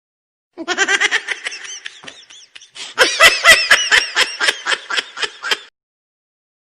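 A laughter sound effect: a high-pitched bout of laughing, a brief break, then a louder run of rapid ha-ha pulses that cuts off suddenly.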